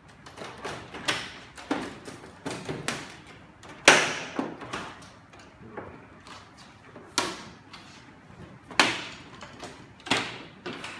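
Plastic front panel and casing of a split air-conditioner indoor unit being handled and unclipped: a string of sharp clicks and knocks, the loudest about four seconds in.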